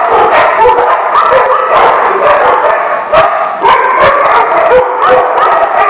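Many dogs barking at once: a loud chorus of overlapping barks with no break.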